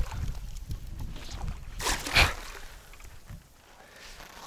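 Wind buffeting the microphone with a low rumble that dies down near the end, and a brief loud rush of noise about two seconds in.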